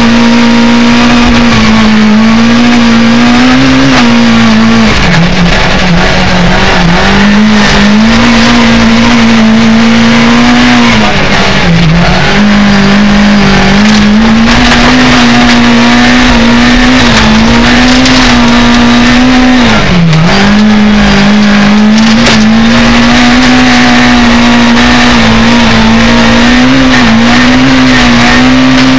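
Rally car engine run hard at high revs, heard from inside the cabin. Its pitch holds high and dips briefly a few times, most deeply about five, twelve and twenty seconds in, over steady road noise.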